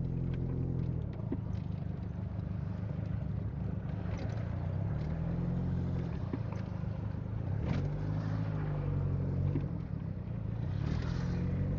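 Car engine running, heard from inside the cabin, its pitch rising and falling a couple of times as the car pulls away and turns. A few light clicks sound over it.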